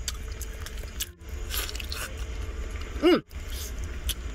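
Close-miked eating of rotisserie chicken: wet chewing and tearing of the meat, with scattered mouth clicks over a steady low hum. About three seconds in, a brief, loud pitched sound sweeps up and back down.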